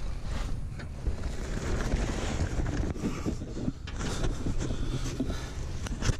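Handling noise on a hand-held action camera's microphone as it is carried and rubbed: a continuous rustling, scraping noise with a few dull knocks.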